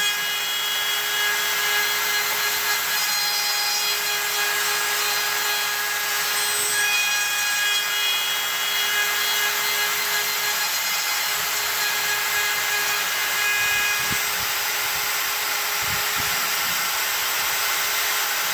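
X-Carve CNC router's spindle running with its bit milling white stock: a steady cutting noise with a high whine whose tones shift a few times as the cut moves.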